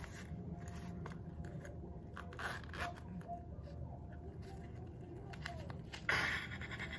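Small zippered fabric pouch being unzipped and opened by hand: faint scraping, rustling and light clicks, with a louder rustle about six seconds in.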